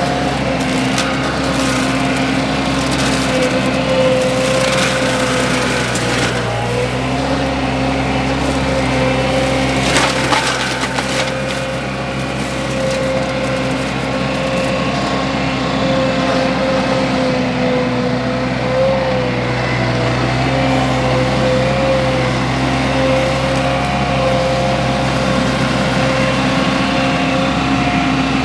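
Baumalight MS530M forestry mulcher on a mini skid steer running steadily under load, splintering wood. Louder bursts of crackling come at the start, again about four to six seconds in, and most sharply about ten seconds in.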